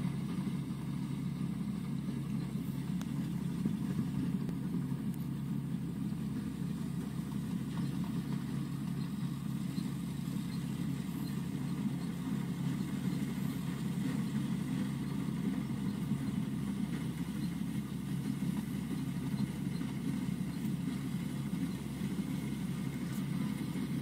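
Rice combine harvester's diesel engine running at a steady drone as it cuts through the paddy.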